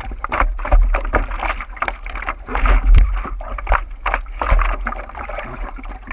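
Sea water lapping and slapping against a surfboard right under a board-mounted camera, in irregular quick splashes over a steady low rumble.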